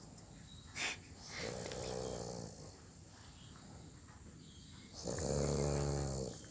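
Snoring in sleep: two long snores about three and a half seconds apart, the second louder, with a short sharp click just before the first.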